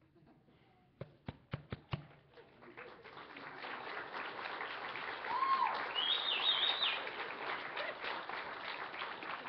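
Audience applause: a few single claps about a second in, swelling into steady clapping from the whole congregation, with a couple of short high calls rising over it around the middle.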